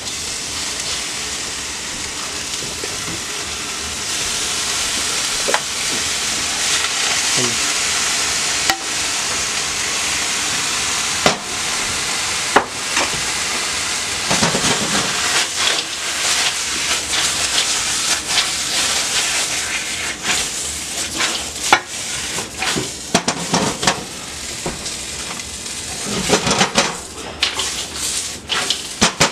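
Green tomatillo salsa sizzling on fried tortilla chips in a hot stainless steel pan on a gas burner, a steady hiss. From about halfway through, the chips are stirred and tossed in the pan, with repeated knocks and scrapes against the metal.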